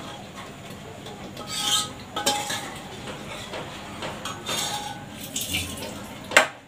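Stainless-steel pots, a steel cup and a spoon clinking and clanking against each other as they are handled at the stove: several separate clinks with a short ring, and one sharp, loudest clank near the end.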